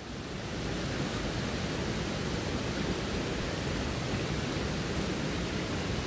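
Waterfall and the rocky stream below it rushing in a steady, even wash of water noise, swelling over the first second and then holding.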